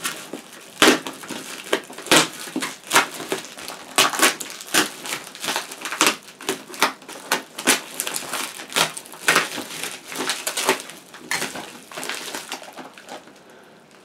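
Black plastic parcel wrapping and packing tape being torn open and crumpled by hand: a run of sharp, irregular crackles and rips that die down in the last couple of seconds.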